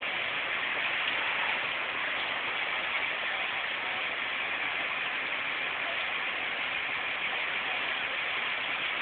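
Steady rushing hiss of a large building fire burning.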